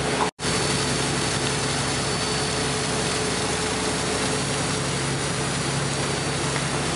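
Fishing boat's engine running steadily, a low hum under even noise of wind and sea, broken by a very short dropout a moment in.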